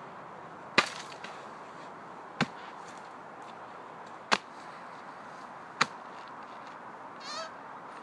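Four hard chops of a steel sword blade biting into a dead birch trunk, each a single sharp impact, spaced about a second and a half apart. Near the end there is a short wavering squeak.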